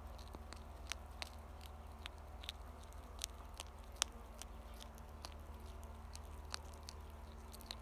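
European hedgehog chewing dry cat kibble: a run of irregular, sharp crunches, the loudest about four seconds in, over a steady low hum.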